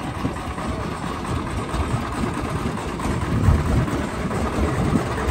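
Steady low engine rumble with uneven swells, like motor vehicles running close by.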